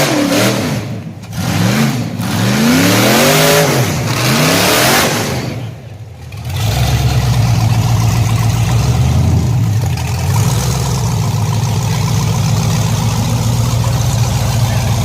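Off-road buggy engine revving hard in several rising and falling surges, then settling about six seconds in to a steady low running drone.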